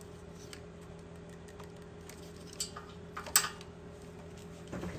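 Small clicks and ticks of a plastic parking-light bulb socket and its wiring harness being handled, the sharpest a couple of clicks about three seconds in, over a faint steady hum.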